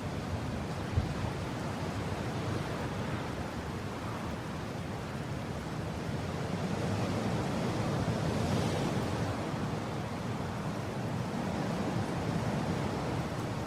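Strong mountain wind blowing steadily, swelling in a gust about two-thirds of the way through. A single brief click sounds about a second in.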